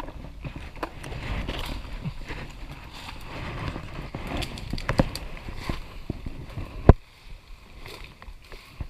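Rustling and crackling of leaf litter and undergrowth underfoot, with scattered clicks and twig snaps. The loudest is one sharp snap near seven seconds in, after which it goes quieter.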